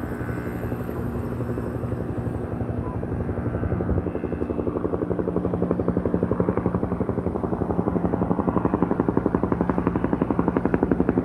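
Helicopter flying overhead, its rotor beating in a fast, even rhythm that grows louder through the second half as it comes closer.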